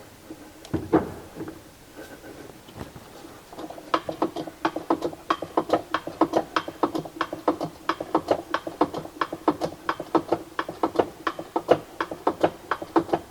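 Rapid, regular mechanical clicking, roughly four clicks a second, starting a few seconds in and running on over a faint steady hum.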